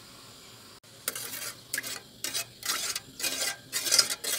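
A spoon stirring coconut milk in a metal pot, scraping and clinking against the pot about twice a second. The stirring starts about a second in and grows louder towards the end.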